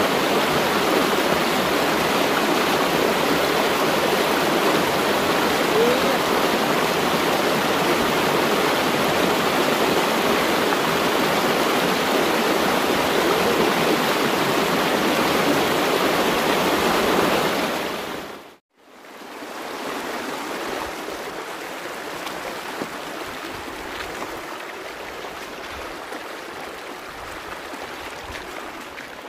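Water rushing in a small stream, a loud, even noise. It cuts out about two-thirds of the way through and comes back quieter as shallow water running over a muddy bed.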